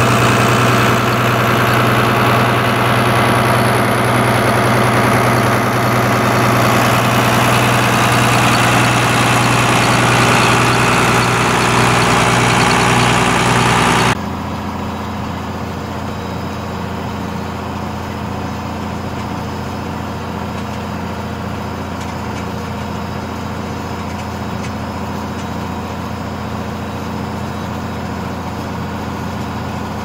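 International Harvester 956 XL tractor's six-cylinder diesel engine running steadily under load, pulling a mounted plough. For about the first fourteen seconds it is loud and harsh, then it cuts abruptly to a quieter, steady engine hum heard from inside the cab.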